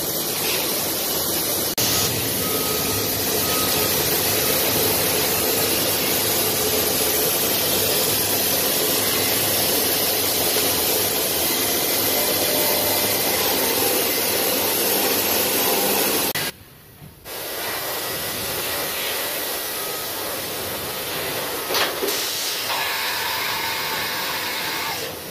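Huller Hille Bluestar 6 CNC horizontal machining center running with its coolant spraying inside the enclosure, a steady hiss. The sound cuts out for under a second about two-thirds of the way through, then carries on a little quieter, with a short click a few seconds later.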